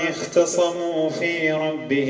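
A man reciting the Quran in a melodic chant, drawing out the verse in long, wavering held notes.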